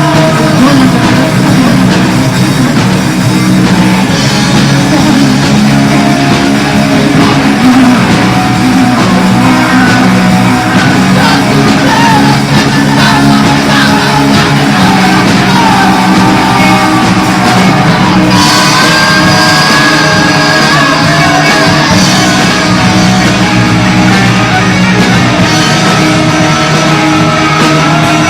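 Loud punk rock demo recording: a full rock band playing steadily, with a high sustained melodic line coming in about two-thirds through.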